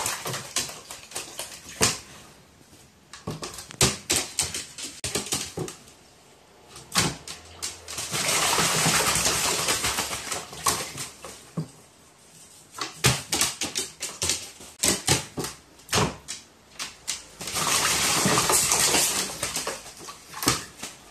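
Crow bathing in a plastic basin of water, beating its wings in the water to throw it about. Two long bouts of heavy splashing, about a third of the way in and near the end, with shorter splashes and drips in between.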